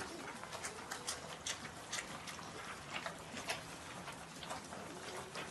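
A litter of black puppies eating together from one dish: an irregular patter of small clicks and smacks from their mouths at the food, several a second.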